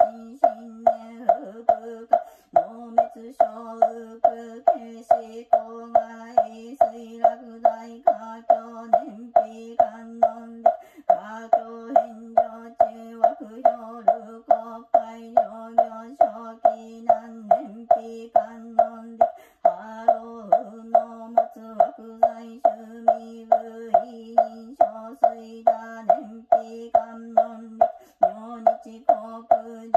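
Recorded Buddhist chanting in a monotone, held over a steady wooden-fish (mokugyo) beat of about two and a half knocks a second. It repeats as a short loop that pauses briefly about every eight and a half seconds.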